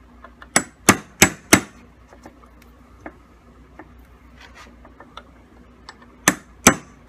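Hammer striking a pin punch to drive a roll pin into the roller rod of a 1950s reel mower, the pin that holds the rod in and keeps the rollers in line. Four sharp metallic taps about a third of a second apart, a pause with small clicks, then two more taps near the end.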